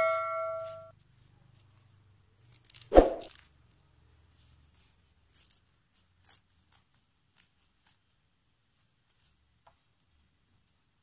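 A bell-like notification chime from the subscribe-button animation fades out in the first second. About three seconds in comes a single loud knock, followed by a few faint clicks.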